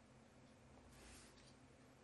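Near silence: faint room tone, with one brief, faint rustle of paper about a second in as a patterned paper strip is slid into place on the card.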